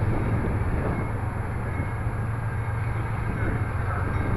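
CSX diesel freight train approaching, a steady low rumble.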